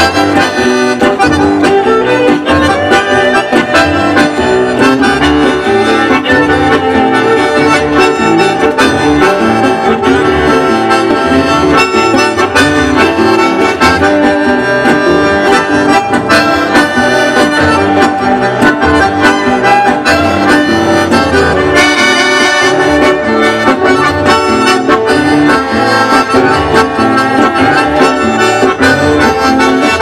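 Live acoustic ensemble playing a tune, with accordion leading over guitars, violin and cello. The music runs on without a break.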